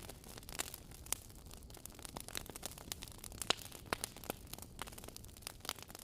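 Wood fire burning in a fireplace, crackling with irregular sharp pops and snaps over a soft steady rush.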